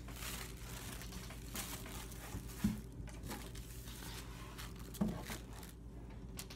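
Crinkly tissue paper rustling as it is smoothed and shifted by hand, with two soft thumps, one after about two and a half seconds and one about five seconds in.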